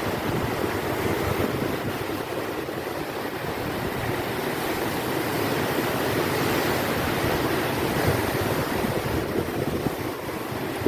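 Steady rush of strong wind buffeting the microphone, mixed with the surf of waves breaking along the sea shore.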